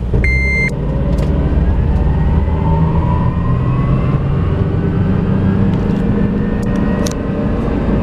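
Inside the cabin of a 2005 Honda Element 4x4 accelerating, with its four-cylinder engine running under load and a steady low rumble. A whine climbs in pitch over the first few seconds as the car gathers speed, then levels off. The last beep of the seatbelt warning chime sounds at the very start.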